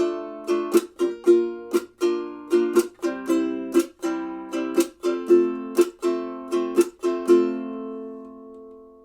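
Enya Nova U ukulele strung with a wound low G, strummed in chords about twice a second; the last chord, about seven seconds in, rings on and fades away.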